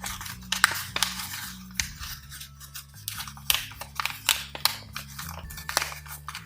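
A folded sheet of paper crinkling and crackling in irregular sharp rustles as an origami paper boat is pulled open by its corners.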